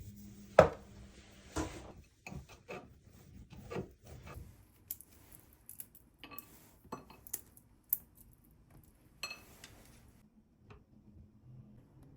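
Dishes and cutlery being handled: an irregular run of knocks, clinks and clatters, the loudest about half a second in, a few of them ringing briefly.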